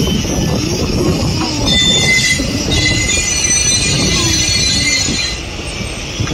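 Indian Railways electric locomotive running light, its wheels squealing on the rails over a low running rumble. The squeal holds several high-pitched tones at once, grows strongest about two seconds in and fades near the end.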